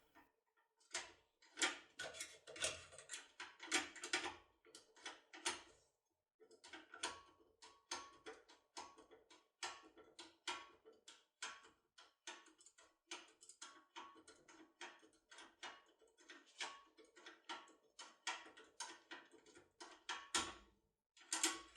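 Quiet, irregular metallic clicks and taps of a locksmith's magic key impression tool being worked inside a Cisa 3+3 lock, each tick with a faint ring, with a short pause about six seconds in.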